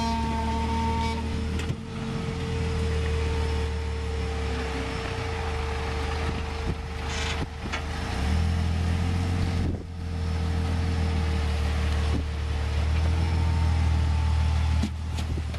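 Jeep Wrangler's engine running at low revs while it crawls over slickrock, a steady low rumble that swells with the throttle a little past halfway and again near the end. A few sharp clicks come in the middle.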